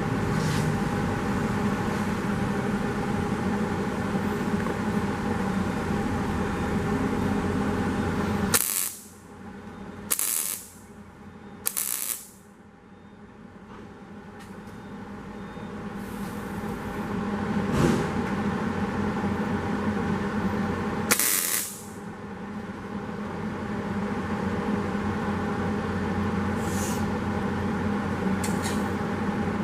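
Welding a sheet-metal patch into a 1931 Ford Model A side skirt: a long continuous weld run with a steady crackling hiss. It breaks off abruptly about a third of the way in, followed by two short tack bursts, then further weld runs that stop and start again.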